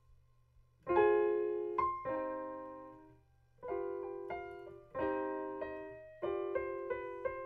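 Piano playing a short melody in a minor key, with its seventh note raised as in the harmonic minor scale. The notes and chords come in short groups starting about a second in, each ringing and fading before the next.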